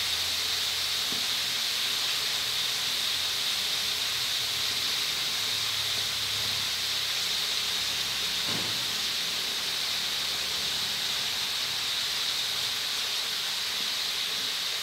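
Sun-dried beef strips and pandan leaves deep-frying in a wok of hot oil: a steady, even sizzle.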